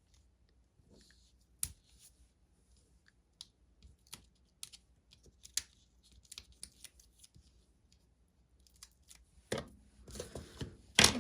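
Scattered light clicks and ticks from handling paper and double-sided adhesive tape strips, with a denser stretch of paper crackle and rustle near the end.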